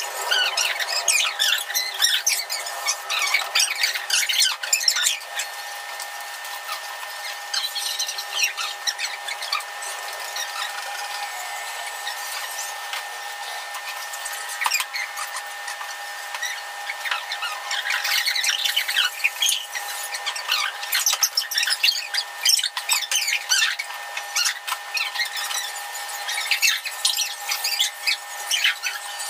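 Cutlery clinking and scraping on plates in irregular clusters during a meal, over a faint steady hum.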